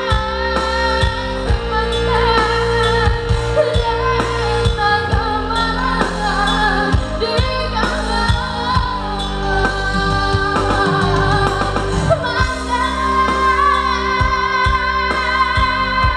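A woman singing a Minangkabau pop song live into a microphone, over amplified backing music with held chords and percussion.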